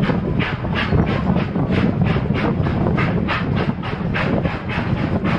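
Narrow-gauge steam locomotive chuffing steadily, about three to four exhaust beats a second, over the continuous low rumble of the open excursion car rolling along the track.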